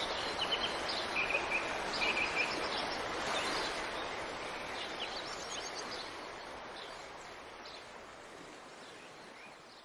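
Water rushing over rocks in a shallow stream, a steady hiss that slowly fades, with birds chirping, most of them in the first few seconds.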